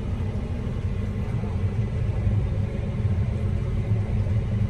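Combine harvester running while cutting rye: a steady, even low rumble.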